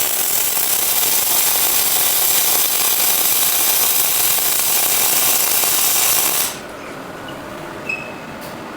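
Industrial robot's tool at work: a loud, steady hissing noise that cuts off suddenly about six and a half seconds in, leaving a quieter steady background hum.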